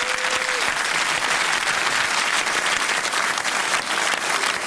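A large crowd applauding steadily; a held musical note dies away about half a second in.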